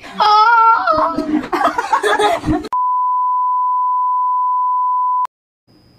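An edited-in electronic beep: one steady, pure tone held for about two and a half seconds, starting about halfway in and cut off with a click.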